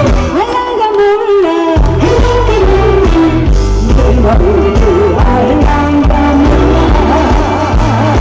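A woman singing a Korean song live into a handheld microphone over loud amplified accompaniment with heavy bass and a steady beat. The bass and beat drop out briefly at the start and come back in just under two seconds in.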